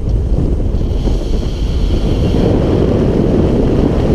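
Wind buffeting the microphone of a camera mounted on the outside of a moving vehicle, a loud, steady rumble.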